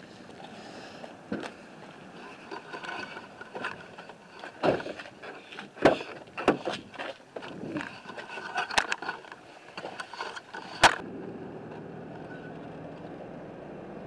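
Scattered clicks, knocks and rustling of someone climbing into a Chevrolet 4x4 pickup, with the sharpest click about 11 seconds in. After it comes the steady hum of the pickup driving, heard inside the cab.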